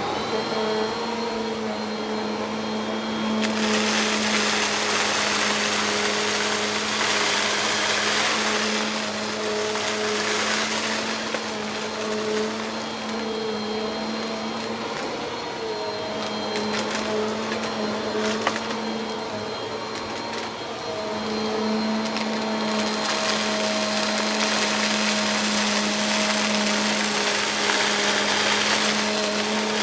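Bissell vacuum cleaner running steadily: a motor hum under an airy rush that grows louder for stretches and then eases back. There are a few light clicks a third and halfway in.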